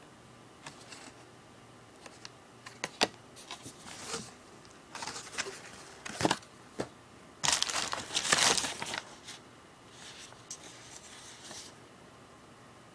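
Bubble wrap and paper packing rustling and crinkling as items are handled inside a cardboard shipping box, with scattered sharp clicks and taps. The longest, loudest rustle comes a little past halfway.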